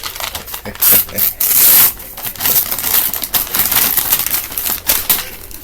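Gift wrapping paper being torn and crumpled as a present is unwrapped: a run of rustling rips, the longest about a second and a half in.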